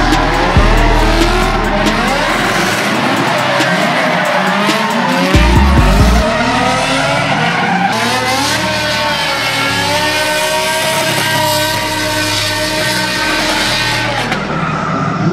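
Drift cars (BMW E30s) sliding sideways at full throttle: engines revving with their pitch sweeping up and down over a continuous screech of spinning, smoking tyres.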